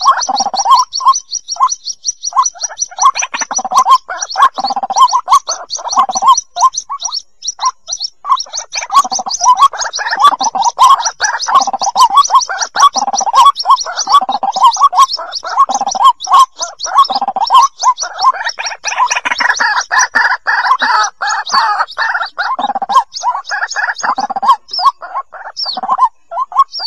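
White-breasted waterhen chicks calling for their parent: a fast run of high peeps over a series of lower calls repeated about twice a second.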